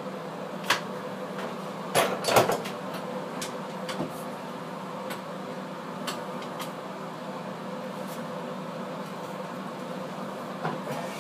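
A steady hum with a few scattered sharp knocks and taps, the loudest a short cluster about two seconds in.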